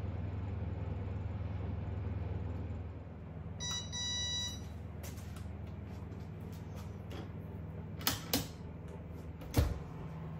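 Built-in Gaggenau oven: a steady fan hum eases off, an electronic beep sounds about four seconds in, then a few clicks from the controls and door, ending in a loud clunk as the oven door is pulled open near the end.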